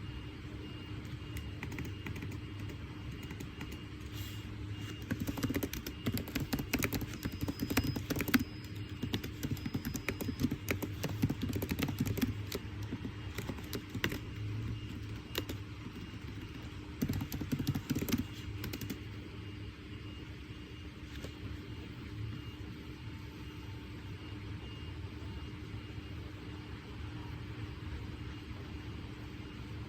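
Two spells of quick tapping and clicking at a study desk, the first from about five to thirteen seconds in and a shorter one around seventeen to nineteen seconds, over a steady low room hum.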